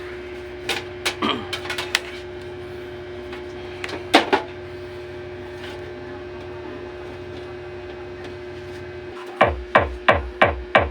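Steady electrical hum and low buzz from an amplifier driving bare, unboxed Tosunra speaker drivers, with a few scattered clicks and knocks. About nine seconds in, music starts through the speakers with fast, heavy bass kicks.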